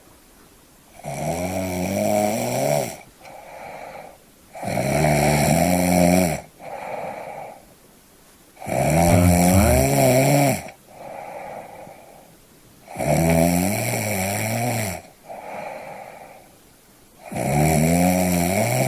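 Snoring in a slow, even rhythm: five long, loud pitched snores about four seconds apart, each followed by a shorter, quieter snore.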